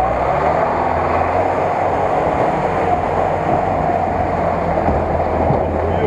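GAZ-66 four-wheel-drive truck's engine running steadily as the truck drives through deep mud and passes close by.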